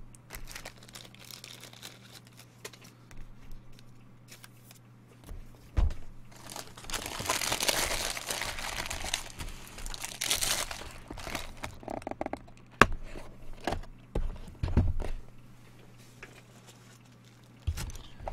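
Plastic wrapping crinkled and torn open on a trading-card box for about four seconds, starting about six seconds in, with a few knocks of cardboard boxes being handled and set down.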